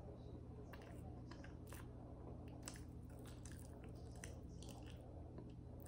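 A person chewing a mouthful of a Dave's Hot Chicken fried chicken slider: faint, irregular small crunches and wet mouth clicks, over a steady low hum.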